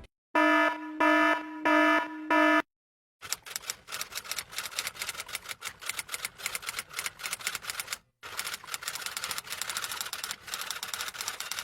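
Four electronic beeps, each about half a second long with short gaps, followed by about eight seconds of fast, irregular clicking like typing, broken once by a brief pause.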